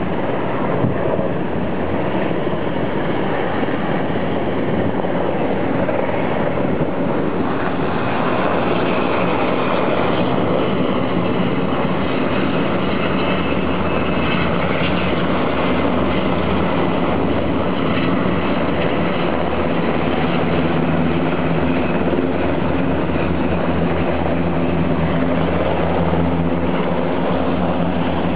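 Black Hawk helicopters flying, a steady drone of rotors and engines. Its low hum becomes more distinct about a third of the way in.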